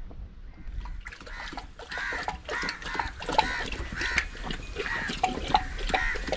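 A Pakistani bully dog lapping water from a shallow channel, with short wet splashes and clicks. Birds call over it again and again from about a second in.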